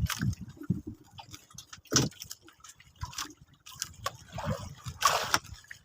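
Water sloshing and gurgling, with scattered knocks, and a short louder rush of water about five seconds in.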